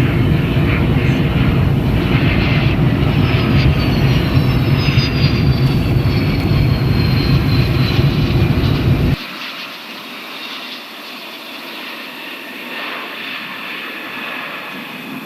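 Jet airliner flying past on approach, its engines running with a slowly falling high whine over a loud low rumble. About nine seconds in the low rumble cuts off suddenly, leaving a quieter, steady engine sound.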